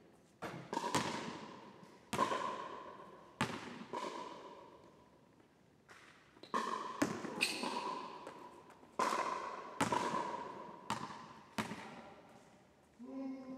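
A basketball bouncing on a hardwood gym floor and hitting the hoop, about a dozen sharp hits at uneven spacing, each echoing in the big hall.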